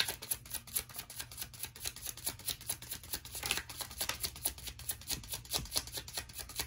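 A deck of oracle cards being shuffled by hand: a quick, uneven run of light card flicks and taps.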